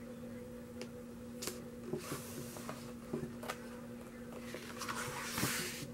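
Pages of a thick glossy photobook being handled: a few light taps and paper rustles, then a page turned with a swish near the end. A steady low hum runs underneath.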